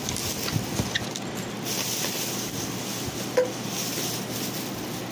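Light rustling and small knocks of items being handled, over a steady background hiss, with one sharper click about three and a half seconds in.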